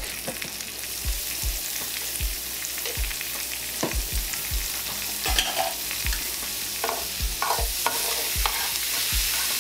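Sliced onions and minced garlic sizzling in a hot skillet, with a metal spoon scraping and knocking against the pan as the garlic is stirred in.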